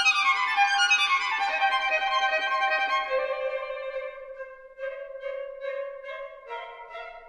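Instrumental background music led by a violin: a quick falling run of notes, then a long held note with short repeated notes over it.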